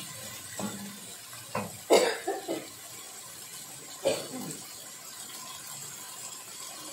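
A person coughing several times in short bursts, the strongest about two seconds in and another about four seconds in, over a faint steady hiss.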